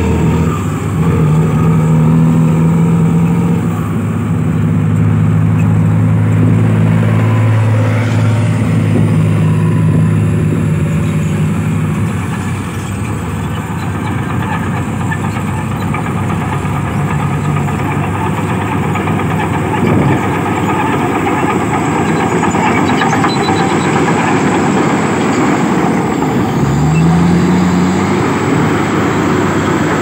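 Heavy diesel engines of earthmoving machines running. A mining dump truck's engine passes close for the first dozen seconds and fades as it drives off, over the steady working noise of a LiuGong B320 crawler bulldozer. About 27 seconds in, an engine revs up briefly.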